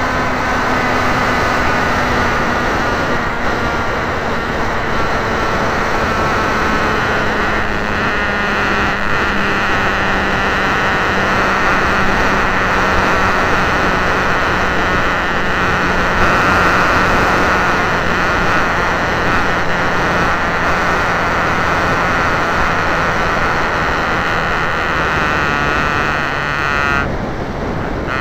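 Wild Hawk RC model airplane in flight, heard from its onboard camera: the motor and propeller drone steadily, their pitch slowly sinking, under heavy wind rush on the microphone.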